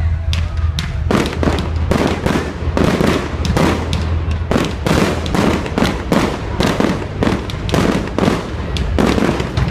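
Fireworks going off in a rapid barrage: a few sharp cracks, then from about a second in a dense run of bangs, two to three a second, each with a short tail.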